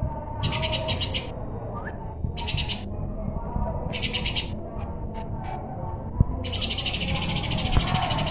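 Songbird singing in bursts of very rapid, high-pitched trilled notes: four bursts, the last and longest starting about six and a half seconds in.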